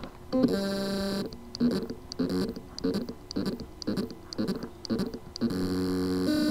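A Western Digital hard drive's spindle motor struggling to spin up: a long buzz, then a quick run of short buzzing pulses about three a second, then another long buzz near the end. The sign of loose motor contacts on the circuit board: the motor can spin but cannot reach full speed.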